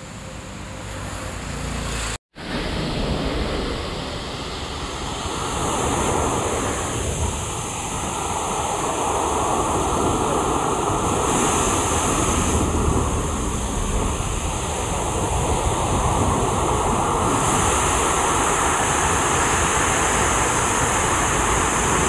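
Steady rush of lake water spilling over a stepped overflow weir, with a brief total dropout about two seconds in.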